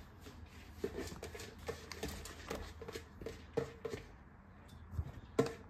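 Bamboo tubes packed with soaked rice and plugged with wooden pegs knocking against each other and the wicker basket as they are handled: a run of light, irregular knocks that pauses briefly, with a couple more near the end.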